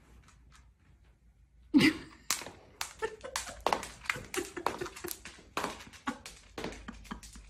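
A slide slipper stuck on a dog's hind paw slapping and scuffing on a wooden floor as the dog walks, a rapid irregular run of taps and thuds starting about two seconds in.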